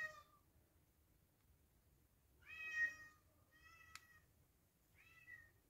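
Domestic cat meowing faintly several times: the end of one meow at the start, then three more short meows in the second half, the first of these the loudest. A single short click falls among them.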